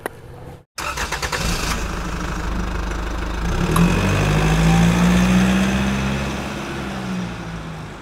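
Engine starting: a brief rapid clatter of cranking, then it catches and runs, revving up to its loudest about four to five seconds in before fading away.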